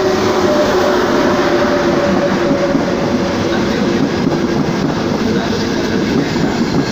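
Frecciarossa ETR 500 high-speed train rolling slowly into the station past the platform: a steady rumble of wheels on rails, with a faint steady whine that fades out in the first few seconds.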